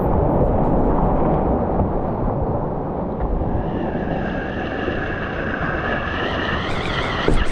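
Whitewater rushing and splashing around a kayak running a steep creek rapid, heard close on a camera mounted on the boat or paddler. The rush eases a little as the boat runs out into calmer water, and there is one sharp hit near the end.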